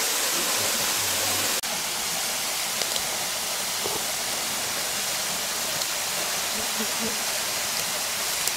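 Steady rushing of a river running over stones, with a brief break about a second and a half in, after which it carries on slightly quieter.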